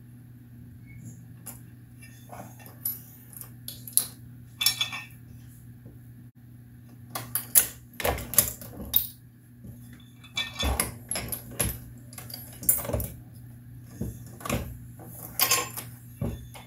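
Dillon 550C progressive reloading press being worked to crimp a 9mm cartridge: irregular metal clicks and clinks from the press, its shell plate and the brass cases, busiest in the second half, over a low steady hum.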